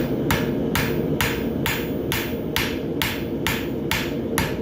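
Farrier's hammer striking a hot steel bar shoe on the anvil in a steady rhythm, about two blows a second, driving downward to forge-weld the heels together. A steady low rumble runs underneath.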